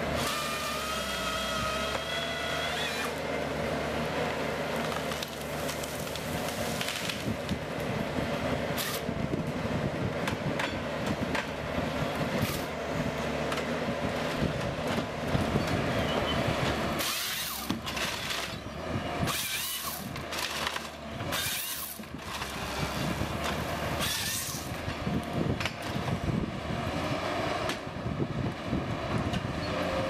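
Forestry harvester at work: its diesel engine and hydraulics run under load, with a pitched whine that rises slightly at the start. The harvester head handles a tree, with wood cracking and branches snapping, and a run of sharp cracks past the middle.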